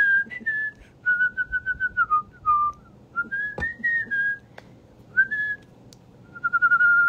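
A woman whistling through pursed lips: a string of short, high whistled phrases with pauses between them. Some notes glide up and down, and a few held notes warble quickly.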